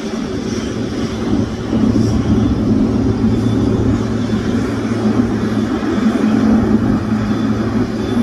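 Twin jet engines of a Boeing 777-300 running as the airliner taxis in, a steady rumble with a faint high whine over it, getting somewhat louder about two seconds in.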